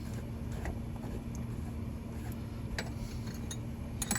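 A wrench turning a nut on a suspension bolt, giving a few scattered light metal clicks over a steady low background hum.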